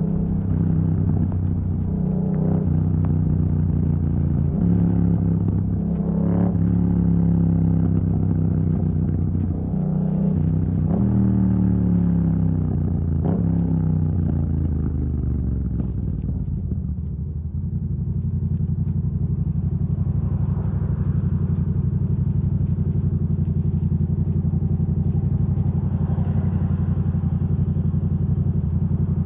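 Yamaha MT-07 parallel-twin engine running through an exhaust with the dB killer removed. Its note rises and drops several times in the first half as the bike shifts gears, then holds a steady note from about halfway.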